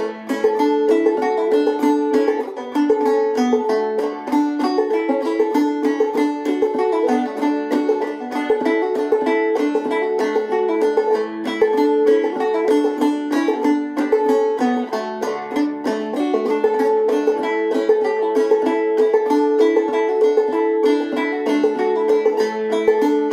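Solo clawhammer banjo, an Enoch 11-inch Dobson, playing an old-time tune in D in open tuning (double C capoed up two), with quickly picked notes and a repeated high drone note.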